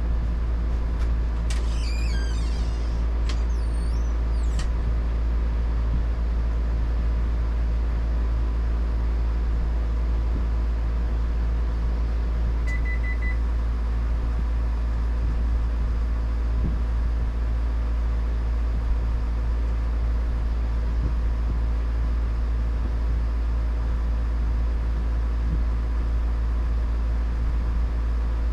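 A steady low machine hum with an unchanging level, like a motor or engine running. About two seconds in there are a few brief, high, wavering chirps, and near the middle there is one short high beep.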